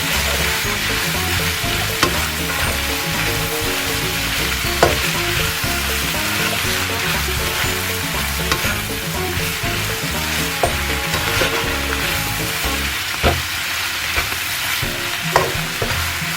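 Chopped carrots and cabbage frying in oil in a pan, with a steady sizzle as they are stirred, and a few sharp clicks of the cooking spoon against the pan.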